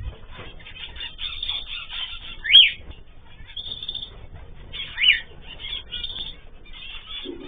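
A mixed flock of cage birds (cockatiels, zebra finches and canaries) chirping continually, with two louder calls falling in pitch about two and a half and five seconds in.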